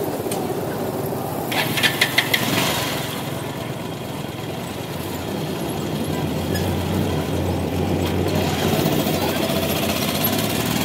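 Motorcycle engine running, with a quick cluster of sharp clicks about two seconds in. A steady low engine note holds through the middle and grows louder near the end as the bike moves off.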